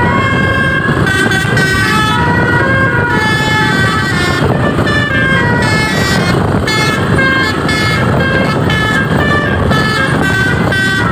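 Indonesian tour bus 'Basuri' telolet horn, a set of electric air trumpets playing a quick tune of stepped notes, with a steady low rumble underneath.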